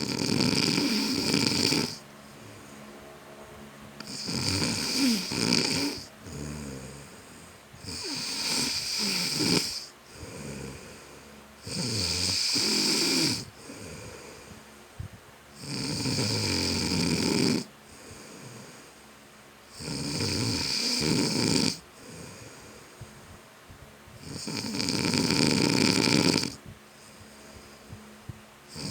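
A man snoring in his sleep: long, loud, rasping snores about every four seconds, seven in all, with quieter breathing between them.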